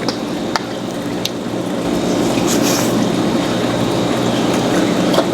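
Close-miked wet chewing of mussels coated in XO sauce, with a few sharp clicks in the first second or so.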